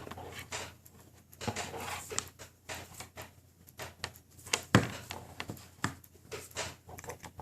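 Scattered clicks, taps and knocks of small plastic connectors, cables and a phone being handled and plugged together, with one louder knock a little under five seconds in.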